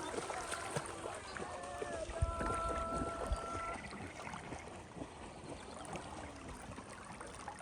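Water running and trickling steadily, with faint distant voices early on and a steady held tone from about two seconds in, lasting a second and a half.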